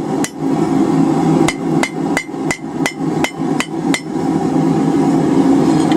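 Hammer tapping hot steel over an anvil horn to open up the curve of a forged heart: two blows at the start, then a run of about eight even blows, roughly three a second, between about one and a half and four seconds in, each with a brief ring. A steady low rushing noise runs underneath.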